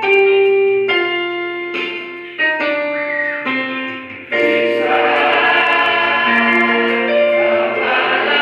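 Church choir with keyboard accompaniment: a few sustained keyboard notes that die away, then the choir comes in with the keyboard about four seconds in, singing together.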